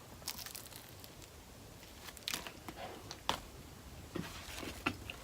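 Faint eating sounds: scattered crunchy bites and crinkling, with a few short sharp clicks.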